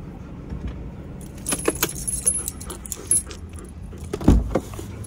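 A bunch of keys jangling and clinking for about two seconds, as they are handled at a Ram van's ignition, followed by one heavy thump about four seconds in.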